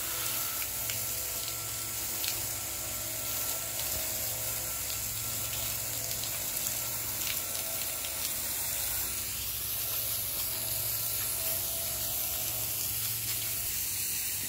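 Garden hose spraying a steady jet of water onto a wooden deck railing and then onto wet paving stones, a constant hiss. A faint steady low hum runs underneath.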